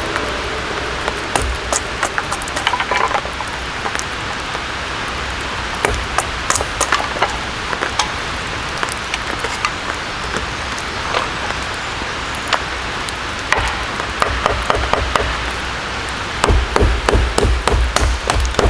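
Steady rain falling, with scattered sharp drip taps. About three-quarters of the way through, a quick run of heavy knocking strikes begins.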